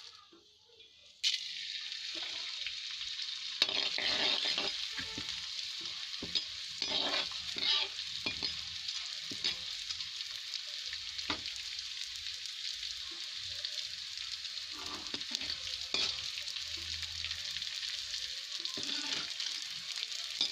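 Pieces of gond (edible gum) frying in hot ghee in a kadhai, puffing up as they cook: a steady sizzle with frequent crackling pops. It starts suddenly about a second in.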